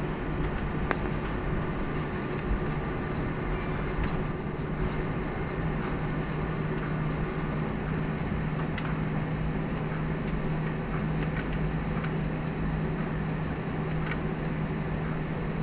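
Steady cabin noise inside an airliner taxiing after landing: the jet engines at idle and the cabin ventilation, with a low steady hum and a few faint clicks.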